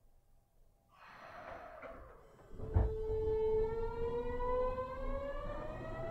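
Kyoto Municipal Subway Tozai Line 50 series train pulling away: a short hiss about a second in, a thud near three seconds, then the VVVF inverter traction-motor whine rising steadily in pitch as the train accelerates.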